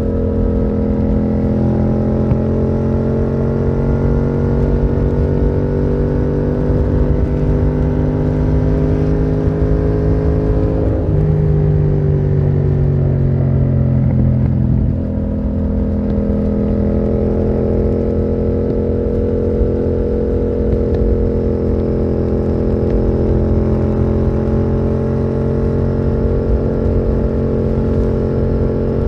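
Yamaha MT-07's parallel-twin engine running through a Termignoni exhaust under way. The engine note climbs slowly, changes abruptly a little before the middle, drops back after a few seconds, then holds a steady note to the end.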